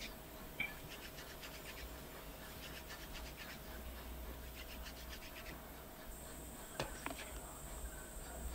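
Fire-making hand drill: a hardwood stick spun fast between the palms against a softer wooden hearth, giving faint dry scratchy rubbing in runs of about a second, repeated every second or two. A single sharp click sounds near the end.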